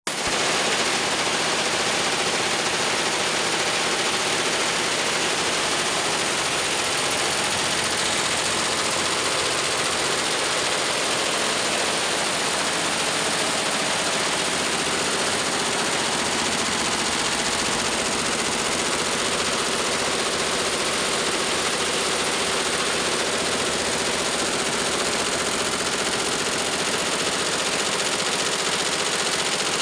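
Multi-head computerized embroidery machines stitching, a steady fast mechanical clatter of the needle heads.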